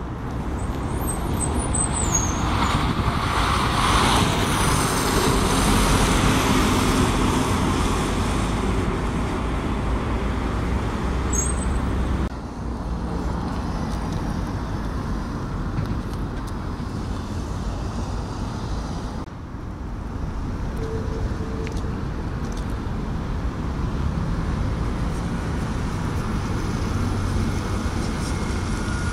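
Single-deck buses running and manoeuvring slowly at a bus terminus, over steady traffic noise. The sound changes abruptly twice, about twelve and nineteen seconds in.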